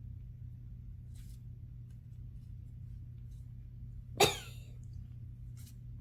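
A single short cough about four seconds in, over a steady low hum, with a few faint soft rustles.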